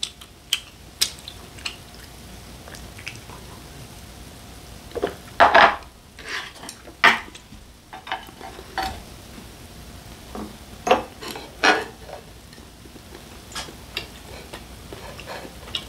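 Metal chopsticks and dishes clicking and knocking at a tabletop grill, in scattered taps with a busier patch around the middle, over a faint steady sizzle of beef intestines grilling on the griddle.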